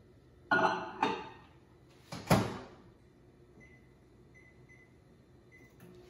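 Over-the-range microwave being loaded and started: two clunks as a glass bowl goes in, the door shutting a little over two seconds in (the loudest sound), then four short high keypad beeps as the cook time is entered.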